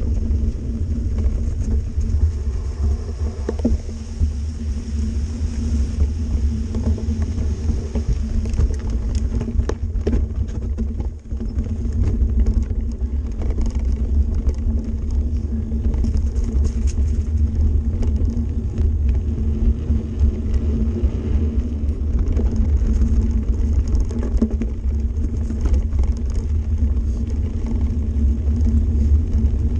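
Mountain bike rolling over a dirt and gravel forest track, heard through the handlebar-mounted camera: a steady rumble of tyres and frame vibration, with a brief lull about eleven seconds in.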